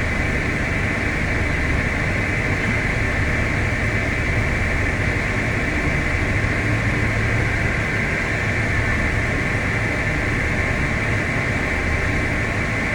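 Tractor and grain cart machinery running steadily, a constant loud drone with a steady high hiss over it.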